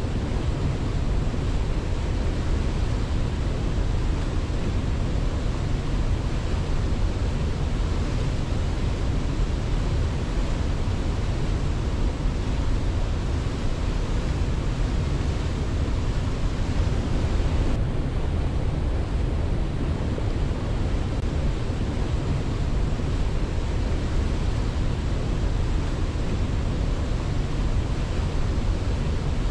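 Waterfall rushing in a steady, unbroken roar of falling water, heaviest in the low end, with no rise and fall.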